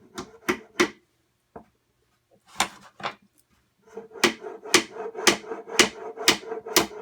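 Hammer driving nails into the wooden corner joints of a Langstroth deep hive body: three quick taps at the start, two more near the middle, then steady blows about two a second from about four seconds in.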